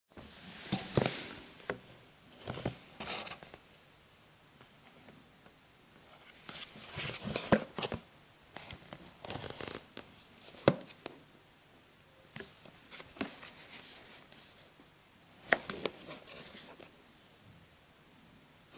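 Clear plastic box rustling and crinkling as hands turn and grip it, in irregular bursts with quieter gaps and a few sharp clicks and crackles of the stiff plastic.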